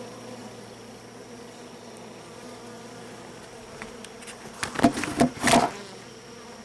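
Honeybees buzzing around an open hive comb, a steady hum. About four and a half seconds in, a short cluster of loud gusty bursts of noise cuts over the buzz for about a second.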